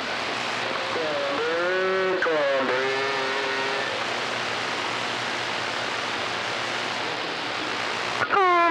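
CB radio receiver hissing with band static, with a weak station's voice faintly audible under the noise about a second in. Near the end a much stronger, clearer signal cuts in.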